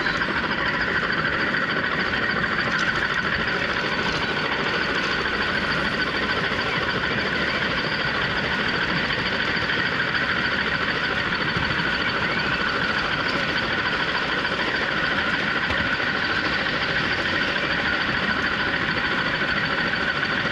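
O gauge garden model train running along its track, heard close up from a camera riding on one of its wagons: a steady rolling noise of wheels on rail with a constant motor whine.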